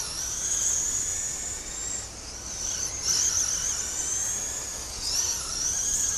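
Mudboss RC oval race cars lapping, their electric motors giving a high whine that rises and falls in pitch through each lap. The whine swells as a car passes close, about every two and a half seconds.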